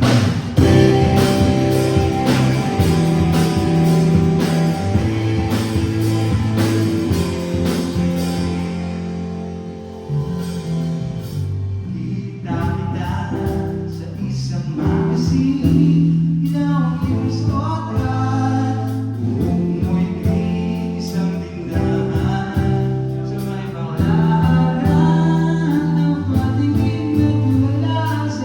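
A song with a lead voice singing over bass, guitar and a steady drum beat, played loud as in a sound check.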